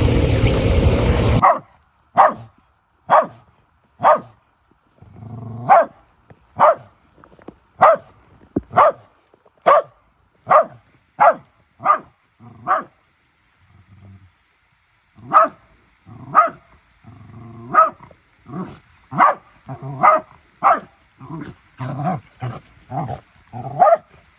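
A loud steady rushing noise cuts off abruptly about a second and a half in. Then a Shetland sheepdog yaps: sharp, high barks about once a second, a short lull about halfway, then quicker barks, about two a second, near the end.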